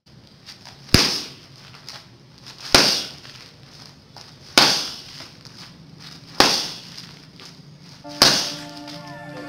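Five sharp open-hand strikes smacking a hand-held focus pad, evenly spaced about two seconds apart, each followed by a short echo in the bare concrete room. Music comes in near the end.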